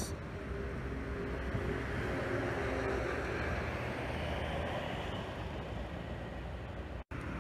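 Road traffic passing on a highway: a tour coach and other vehicles going by, a steady mix of engine drone and tyre noise. The sound cuts out briefly near the end.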